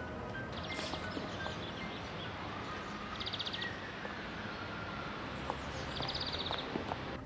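Outdoor park ambience: a steady hiss of background noise with a bird's short, high trill heard three times, about a second in, at about three seconds and at about six seconds.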